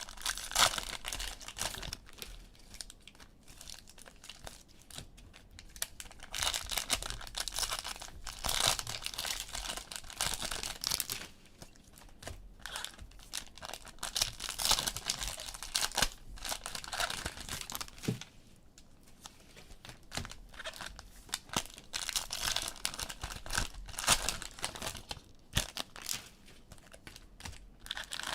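Plastic cellophane wrappers of trading-card cello packs crinkling and tearing as they are ripped open and handled, in irregular bursts with short pauses between.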